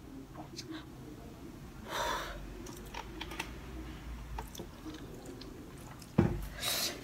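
Chewing and small clicks of a fork against a plate while eating very spicy instant noodles, with a noisy breath about two seconds in. Near the end comes a sharp knock, the loudest sound, followed by a short hiss.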